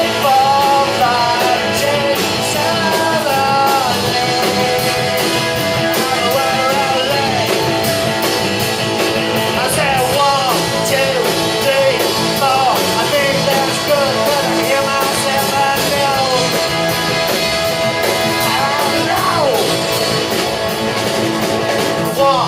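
Live rock band playing, a singer's voice over guitar and drums with a steady cymbal beat.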